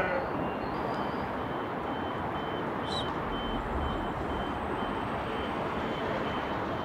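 A steady rushing noise with a faint high electronic beep repeating about twice a second, and a short tick about three seconds in.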